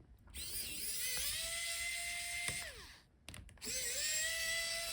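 Small electric screwdriver backing out laptop hinge screws. Its motor spins up, holds a steady whine for about two seconds and winds down. After a couple of clicks it spins up again about three and a half seconds in.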